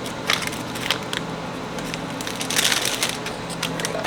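Dry crackling and rustling as hands handle spices for a spice bag, with a few sharp crackles about a third of a second in and a denser run near three seconds, over a steady low hum.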